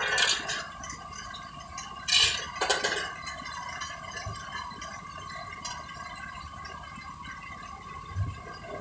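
Construction machinery running with a steady whine, with a few short metallic clinks and clatters at the start and about two to three seconds in.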